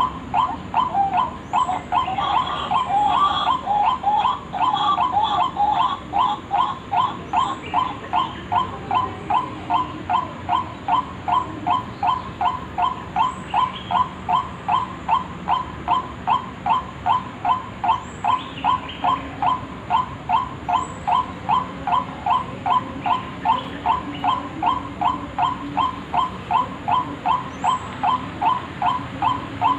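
White-breasted waterhen (ruak-ruak) lure call: one short note repeated steadily, about two and a half times a second, with a louder, busier overlap of calls in the first several seconds.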